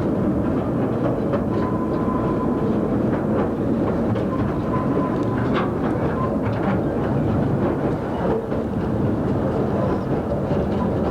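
Narrow-gauge train running along the line: a steady rumble with scattered irregular clicks from the wheels on the track.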